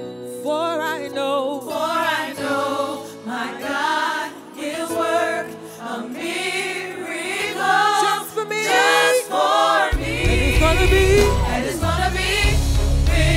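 Gospel song: voices singing melodic lines with vibrato over sustained low notes, and about ten seconds in a heavy bass beat comes in under the singing.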